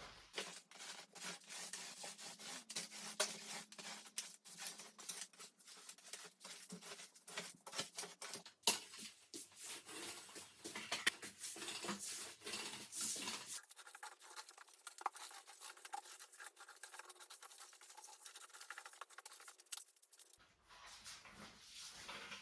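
Quick, irregular scratching and clicking of small objects being handled, with a sharper click about nine seconds in.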